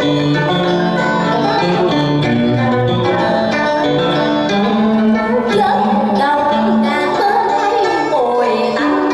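Vọng cổ music: plucked string instruments playing a melodic line, with some notes bent and wavering.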